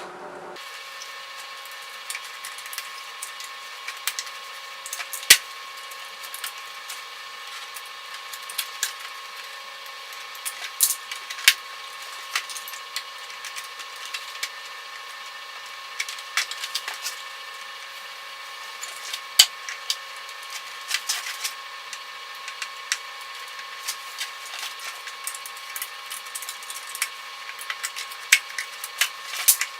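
Utility knife cutting and prying through the sealant and plastic of a BMW E39 headlight lens: irregular scratches and sharp clicks over a steady hum.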